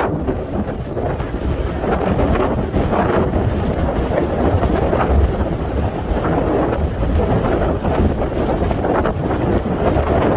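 Strong sea wind buffeting the microphone with a steady low rumble, gusting in surges every couple of seconds, over the wash of waves on the shore.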